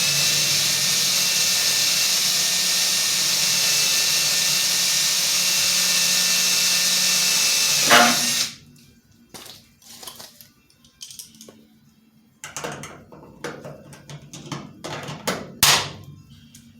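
Electric hand drill running steadily for about eight seconds while drilling rivet holes in an aircraft wing spar, then cut off with a click. After it come scattered light clicks and knocks of parts being handled.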